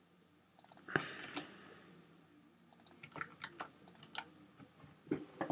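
Scattered quiet clicks of a computer keyboard and mouse. A sharper click about a second in is followed by a short burst of noise, and there is a quick run of clicks in the middle.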